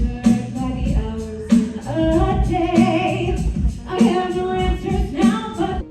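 Live band playing a rock song with singing over a steady drum beat.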